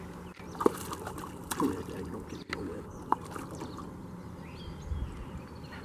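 A hooked largemouth bass splashing at the surface beside a john boat as it is reached for by hand and landed, with a few brief sharp splashes and knocks, the loudest about half a second in.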